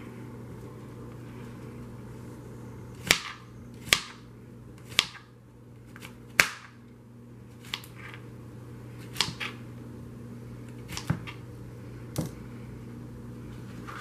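Kitchen knife chopping zucchini on a plastic cutting board: about ten sharp knocks of the blade striking the board at uneven intervals. The loudest four come close together a few seconds in.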